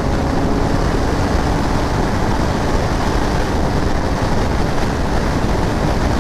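Heavy wind rush on the helmet microphone of a Kawasaki Ninja 1000SX inline-four sport-tourer at high highway speed. The engine's steady drone is heard under the wind in the first second, then is buried by it.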